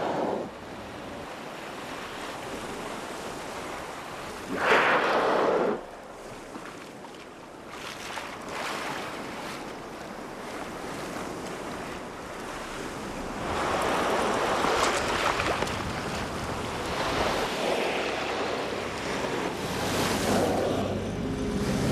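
Open sea with wind on the microphone and water splashing as North Atlantic right whales roll at the surface. A louder rush of water lasts about a second, about five seconds in.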